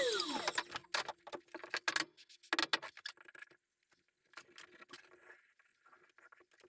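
Wooden boards knocking and clattering on a workbench as they are picked up, stood on edge and set down, with a few sharp knocks in the first two seconds, then fainter scattered taps and sliding.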